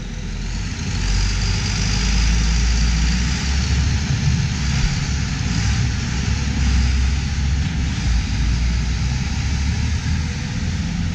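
John Deere tractor's six-cylinder diesel engine running steadily as it pulls a loaded New Holland 195 manure spreader past, a deep rumble that grows a little louder about a second in.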